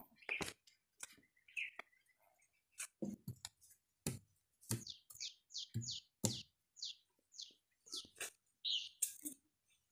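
A bird chirping in a quick series of short, high, falling notes, about two a second, in the second half. Scattered sharp clicks or knocks come between the notes.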